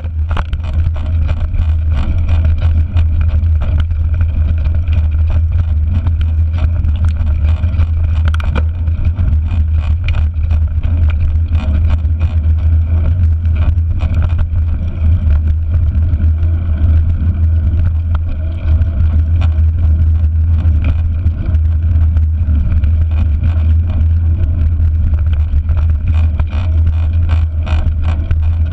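Wind rumbling on a GoPro mounted on a mountain bike's handlebars while riding, a steady low roar. Many small rattles and knocks come through as the bike rolls over the bumpy dirt track.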